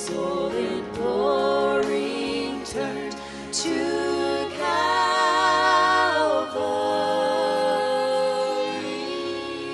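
A small vocal group singing a hymn in harmony into microphones, with instrumental accompaniment. A long held chord comes about halfway through, and the music then softens toward the end.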